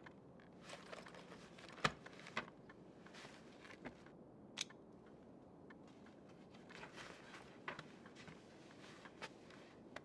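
Soft rustling with scattered light clicks and taps, the sharpest about two seconds in, from a person shifting on a sofa and picking up and opening a book.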